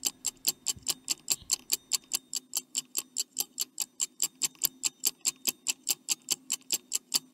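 Stopwatch ticking sound effect counting down the answer time: an even run of quick ticks, about five a second, over a faint steady low hum.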